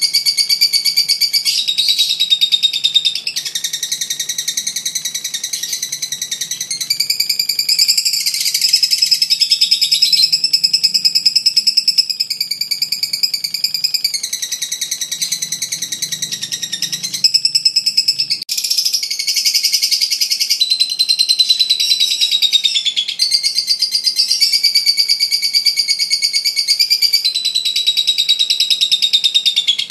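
Masked lovebird singing "ngekek": a loud, fast, high-pitched chattering trill that runs on for several seconds at a time. It breaks off only briefly, with the clearest pause about two-thirds of the way through.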